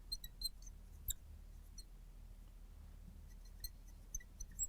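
Scattered light clicks and taps, single and in small clusters, over a faint steady low hum.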